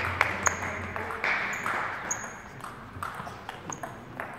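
Table tennis ball being struck back and forth in a rally, each hit a sharp click off bat and table, quick at first and sparser later. A few short high squeaks, shoes on the hall floor, come in between.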